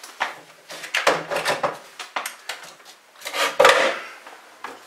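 Hard objects being handled on a wooden shelf and workbench: an irregular run of knocks, scrapes and clatters, loudest a little past halfway.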